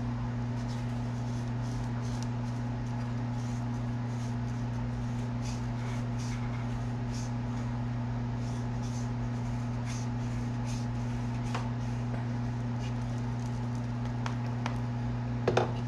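Steady low hum, with faint, irregular scraping as a hand reamer is worked through the bore of a fishing-rod grip to enlarge it. A couple of sharp knocks near the end.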